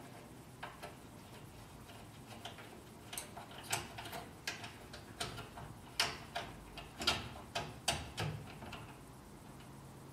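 Irregular small clicks and ticks of hardware being handled while the locking nut is fitted onto the locking knob of a cycle carrier. The clicks come about one or two a second and are most frequent between about three and eight seconds in.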